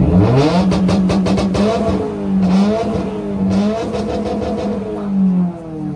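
A car's engine and exhaust, revved up hard at the start and held at high revs with crackles, then let down near the end.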